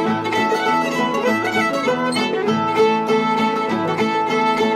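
Old-time string band playing a fiddle tune: fiddle lead over guitar, mandolin and banjo in a steady rhythm.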